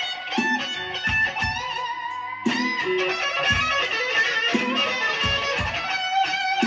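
Stratocaster-style electric guitar playing a slow blues lead, with bent notes that slide up and down in pitch, over a steady low beat.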